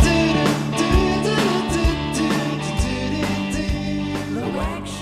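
Outro song with a singing voice over a steady drum beat, slowly fading out.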